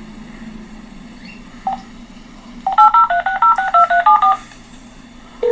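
Telephone keypad tones as a number is dialed: one beep a little under two seconds in, then a quick run of about a dozen beeps. A steady phone-line tone sets in right at the end.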